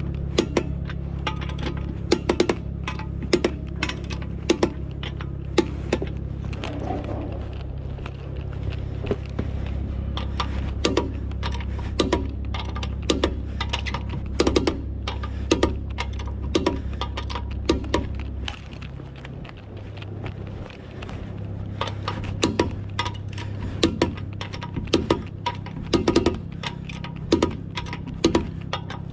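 Sharp metallic clicks and clinks of hand tools and wheel lug nuts being handled during a tyre change, irregular and close together, over a steady low hum that drops about 18 seconds in.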